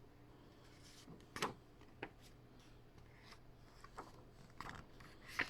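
Paper being handled in a quiet small room: several short rustles and taps, the loudest about a second and a half in and near the end.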